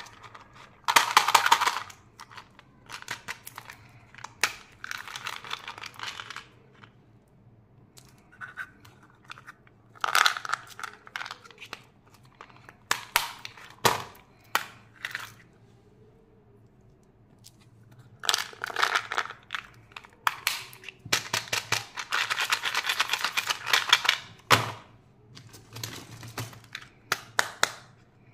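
Plastic candy packaging crinkling and tearing as a small mint-candy pack is unwrapped, in several separate bursts. Sharp clicks and taps of hard plastic fall between them.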